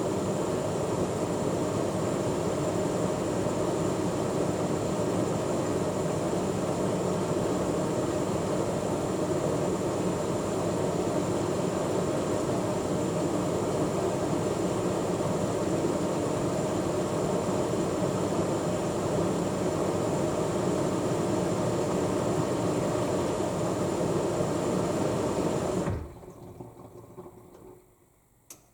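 AEG L7FE7461BI washing machine filling with water at the start of its first rinse: a steady rush of water that cuts off suddenly near the end, followed by a single click.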